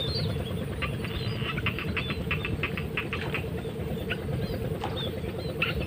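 Wetland ambience in a flooded rice field: a run of quick, high ticking chirps from small animals, densest around the middle, over a low steady rumble.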